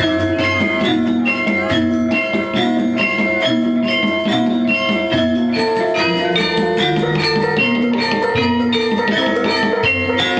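Dance accompaniment music with a steady, repeating rhythm: tuned metallic mallet percussion over drums.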